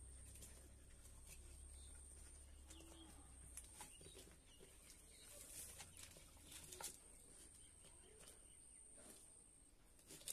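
Near silence: faint outdoor ambience with a steady high-pitched hiss, a few soft clicks and scrapes, and a sharp click near the end.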